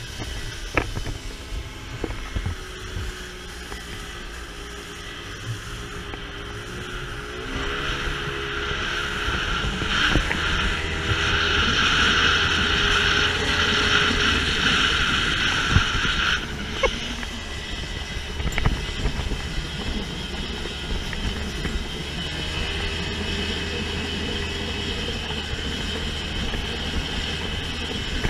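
Small outboard motor running with the boat under way at speed, wind buffeting the microphone. The engine's pitch rises about seven seconds in, and a louder rushing stretch from about ten seconds cuts off suddenly about six seconds later.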